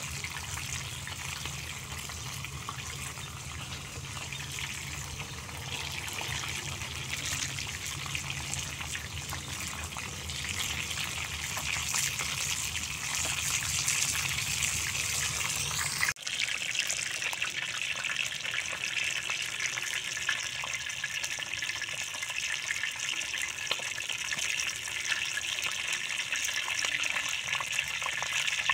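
Fish frying in oil in a wide flat metal pan over a wood fire: a steady sizzle with fine crackling, which briefly drops out about sixteen seconds in and comes back slightly brighter.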